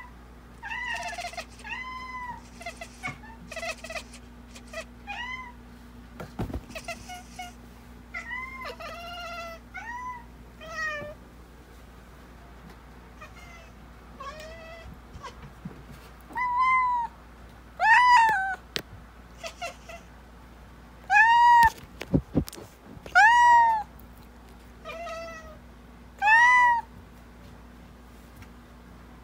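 Domestic cat giving short, rising-and-falling meows over and over, softer at first and louder from about halfway through, as it watches a ladybug crawling on the wall above it.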